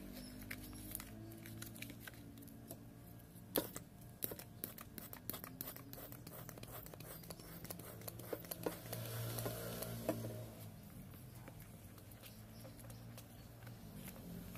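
Thick, sticky slime mixture being stirred in a plastic tub, with foam folded in later: wet squishing with a run of sharp clicks and taps, the loudest about three and a half seconds in.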